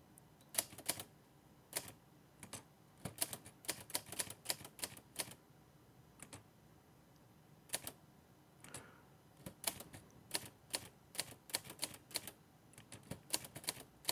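Hermes 3000 manual typewriter being typed on: irregular runs of sharp key strikes with short gaps and a pause of about two seconds midway. It is test typing with a freshly installed ribbon.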